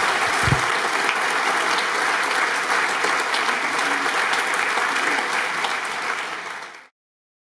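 Large seated audience applauding steadily, with a brief low thud about half a second in; the applause fades quickly and cuts off just before the end.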